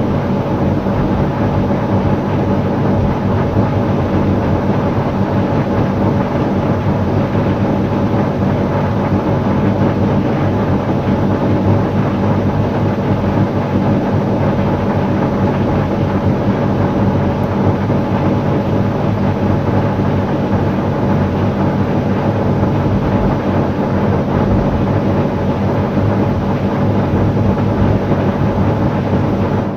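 Portable air conditioner running: a steady mechanical hum with several constant low tones under an even rush of fan air.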